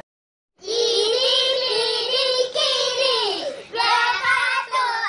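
Children singing a tune together, starting after a brief moment of silence: a long held note, then shorter sung phrases.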